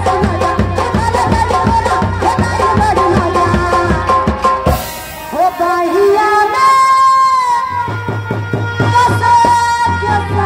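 Live nautanki stage music through loudspeakers: drums keep a steady beat under a melody, break off about five seconds in, and a woman's sung ghazal line with long held, gliding notes follows before the drums come back in near the end.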